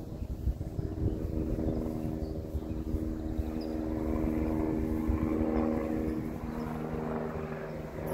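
Helicopter flying overhead out of sight: a steady droning hum over a low rumble, growing a little louder through the middle.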